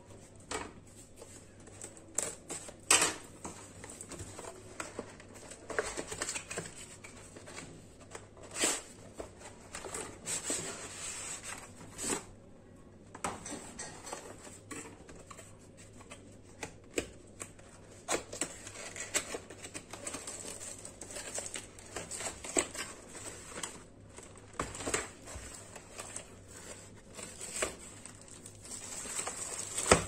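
A cardboard packaging box being handled and opened by hand: scattered taps, knocks, scrapes and rustles of cardboard. Plastic wrap crinkles more steadily near the end.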